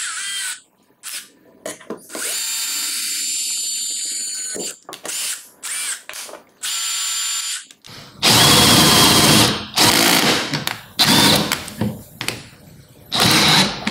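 Stanley SBH201D2K 18 V brushless cordless drill: first a few short runs of the motor spinning freely with a high whine, then, from about eight seconds in, loud stop-start bursts of drilling through steel with a 13 mm twist bit. The bit catches in the existing hole but the drill keeps turning through, showing strong torque.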